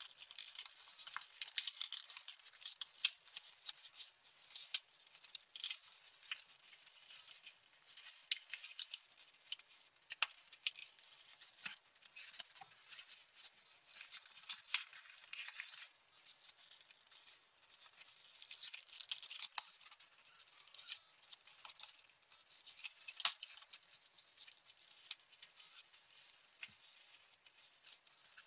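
Folded paper of a multicoloured modular origami model crinkling and rustling as it is worked by hand, with frequent small crackles and sharp clicks from the paper.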